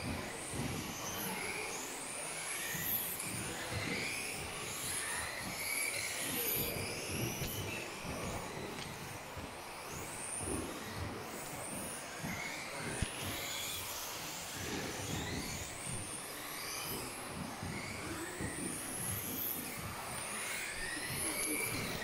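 Several radio-controlled off-road buggies racing, their motors whining up and down in pitch as they accelerate and brake, overlapping one another, over the rumble of tyres on the track.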